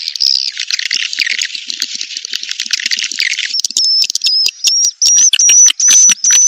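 Edible-nest swiftlet calls from a 'birahi' (mating-call) lure track, the kind played to draw swiftlets into a nesting house. Dense, high twittering chatter gives way about halfway through to a rapid series of short, sharp chirps on a steady high note.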